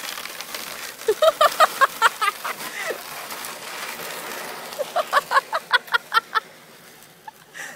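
High-pitched cackling laughter close to the microphone in two rapid runs of about five pulses a second, one about a second in and one about five seconds in.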